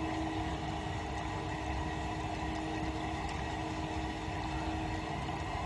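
Steady machine hum with a constant tone and a low rumble, unchanging throughout.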